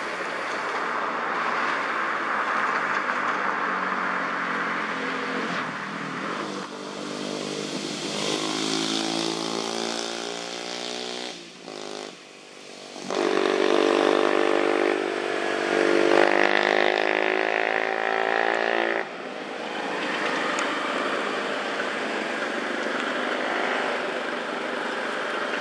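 Motor vehicle traffic passing on a road: a steady traffic hum, with an engine's pitched drone swelling in from about 6 seconds in and again, louder, from about 13 to 19 seconds, with a short lull between.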